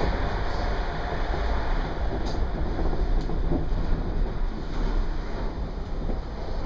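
Ride noise heard inside a Shonan Monorail car as the rubber-tyred suspended train runs along its overhead rail: a steady rumble with a few faint clicks.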